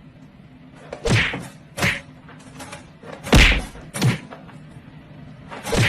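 A run of five dull thumps at uneven intervals, the loudest about three and a half seconds in.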